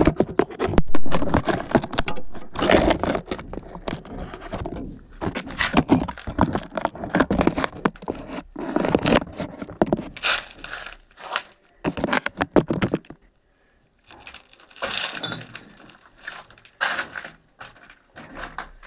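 Irregular scraping, knocking and crackling of hand tools on brick and loose rubble, a dense clatter for the first dozen seconds, then a brief lull and short separate bursts.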